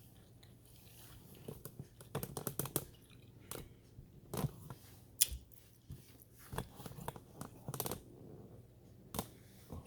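A person chewing a mouthful of stuffed bell pepper, with irregular soft clicks and smacks.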